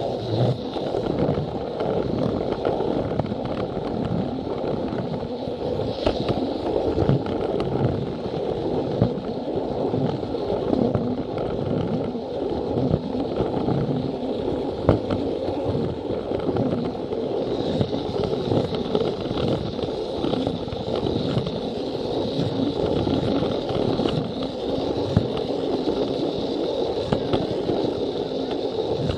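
Plarail toy train running on plastic track: the battery motor's whirring and the wheels' steady rattle, with irregular small clicks over the rail joints. A thin higher whine comes up over the second half.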